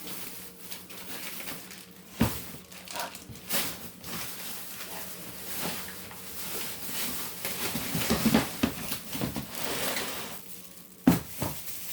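Plastic grocery bags rustling while jars and bottles are handled and set into a refrigerator, with scattered sharp knocks. The loudest knocks come about two seconds in and again near the end.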